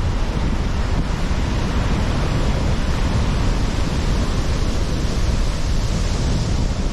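Surf crashing and rushing on a rough, stormy sea, with strong wind buffeting the microphone in a constant low rumble.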